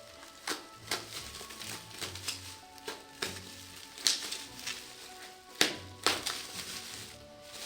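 Background music, with a dozen or so irregular sharp clicks and crackles over it.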